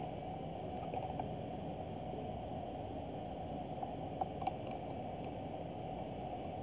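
Faint steady low room noise, with a few light clicks from handling the router and the pen, about four seconds in.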